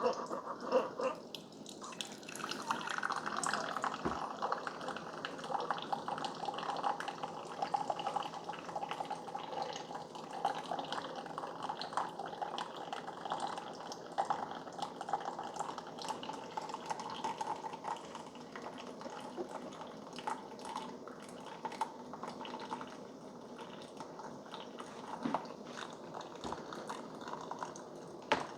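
Keurig K-Supreme Plus Smart single-serve coffee maker brewing: hot coffee streaming and dripping into the cup with a steady, crackly gurgle, on its 'Balanced' strength setting.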